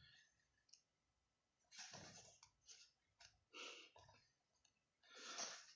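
Faint rustling of paper book pages being leafed through by hand: a few short, soft brushes spread across the few seconds.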